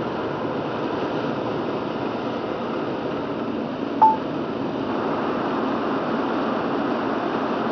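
Steady road noise heard inside a car driving on a wet road: tyres hissing on the rain-soaked pavement. About four seconds in there is a single short electronic beep, which is the loudest sound.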